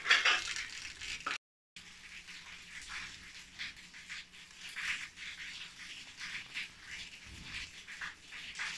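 Faint, irregular scraping and tapping of a kitchen knife pushing chopped onion off its blade into a glass bowl, several short strokes a second, over a faint steady low hum.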